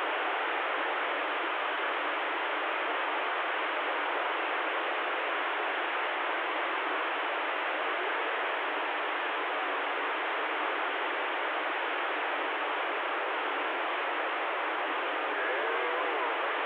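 Steady hiss of static from a Stryker CB radio's speaker with the squelch open on an empty channel between transmissions. Faint warbling tones rise out of the hiss near the end.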